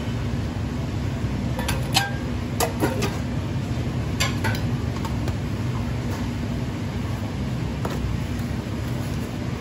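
Stainless steel bowl and hotel pan clinking and ringing briefly as they are handled and set down: a cluster of clinks about two to three seconds in, two more about four seconds in and one near the end. A steady low background hum lies underneath.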